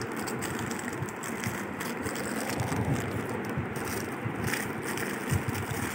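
Clear plastic packaging rustling and crinkling as a child's wristwatch is worked out of its bag by hand, over a steady background hum.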